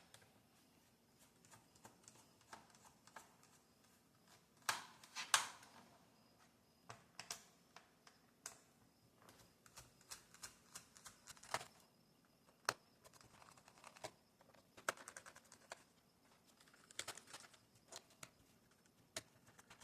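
Faint, irregular small clicks and ticks of a Phillips screwdriver working the screws out of a plastic laptop bottom case, with light handling of the case and screws.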